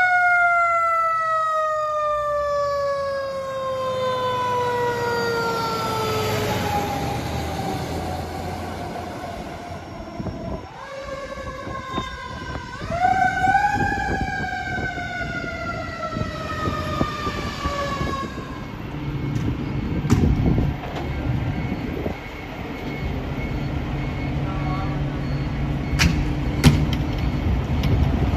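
A fire truck's mechanical siren winds up and coasts down slowly twice, its pitch falling over several seconds each time, over the rumble of the fire apparatus engines. In the last third the siren is off and the engines run steadily, with a few sharp knocks.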